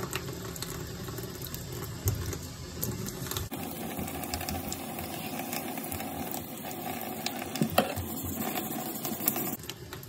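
Wet fine-grit sandpaper rubbed by hand back and forth along an old carbon-steel butcher knife blade: a steady, scratchy wet rubbing of quick strokes. The sound changes abruptly in tone about three and a half seconds in.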